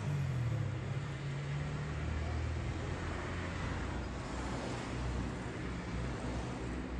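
Steady low engine hum with an even haze of background noise, like a motor vehicle running nearby.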